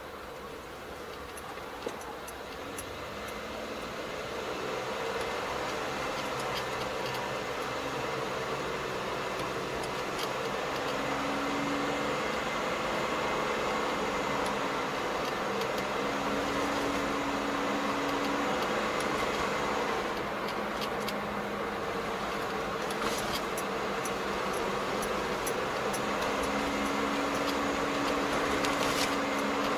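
Engine and road noise inside a moving car's cabin, a steady hum that grows louder over the first several seconds, with a low drone that comes and goes and a few faint ticks.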